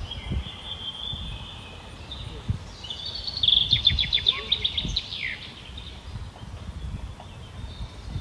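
Outdoor summer ambience: a steady high insect buzz, then about three seconds in a songbird sings a quick run of chirping notes lasting about two seconds, the loudest thing here. Low thumps sound throughout.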